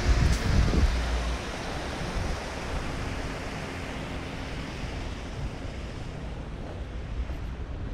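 Wind buffeting the microphone with a heavy low rumble for about the first second, then settling into a steady rushing hiss.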